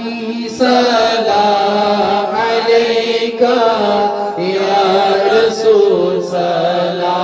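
Unaccompanied male voices chanting an Urdu naat in long held, slowly bending notes. The lead reciter is amplified through a microphone, and the standing men around him join in.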